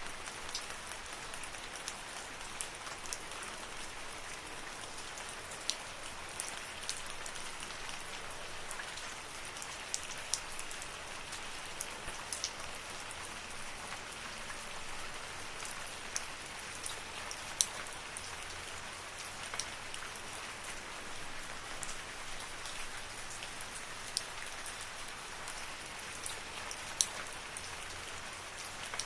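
Steady rain falling in a forest, an even hiss with individual drops ticking sharply here and there, two louder drops landing near the middle and near the end.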